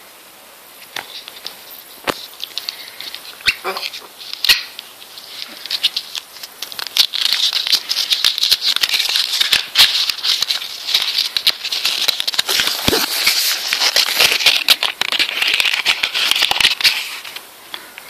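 Paper crinkling and tearing: a dense run of rapid crackles from about six seconds in until near the end, after a few sharp clicks.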